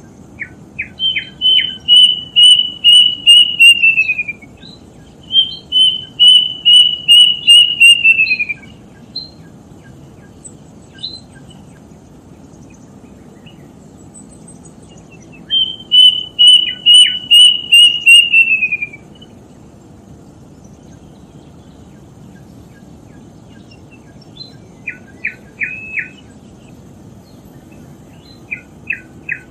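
A bird calling: three runs of loud, clear whistled notes repeated about three times a second, each run lasting about three seconds and sliding down in pitch at its end, followed near the end by a few short chirps.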